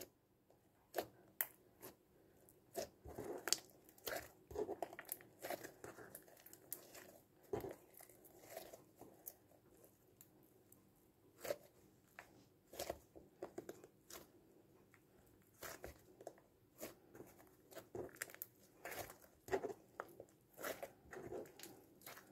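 Stiff homemade PVA-glue slime with beads being kneaded and pressed by hand, giving faint, irregular clicks, pops and squishes, with a short lull about halfway through. The maker thinks the slime is overactivated.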